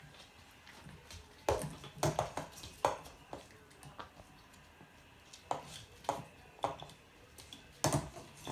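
Hanging plastic toys and links clattering against a PVC play-gym frame as Sheltie puppies bat and tug at them: irregular sharp knocks and rattles, clustered about two seconds in, a few around six seconds, and a loud one near the end.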